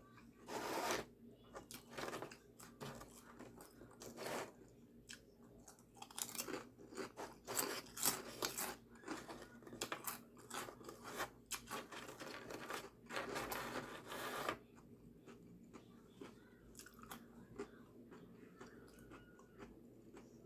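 Close-up eating sounds: crunchy bites and chewing of a sandwich on toasted, buttered bread, dense crackling bursts that stop about fourteen seconds in, leaving faint chewing.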